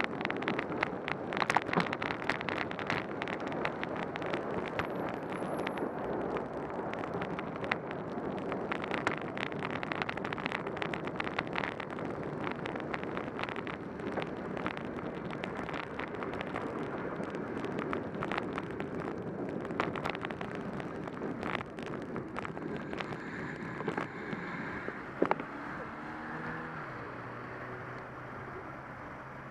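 Bicycle ride through rain-soaked city traffic: a steady hiss of wet road and passing cars, peppered with sharp ticks of raindrops hitting the camera. Near the end the hiss eases and a vehicle engine's hum steps in pitch.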